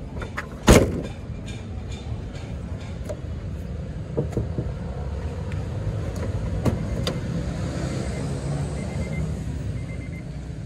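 Steady low hum of car engines idling, with one loud sharp knock about a second in and a few fainter clicks later.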